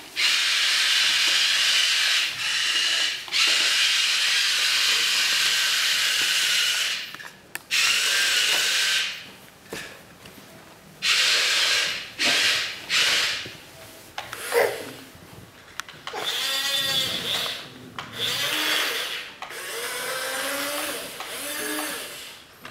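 Remote-control toy excavator's small electric motors whirring in bursts of a few seconds each, stopping and starting repeatedly. Wavering pitched tones join in over the last third.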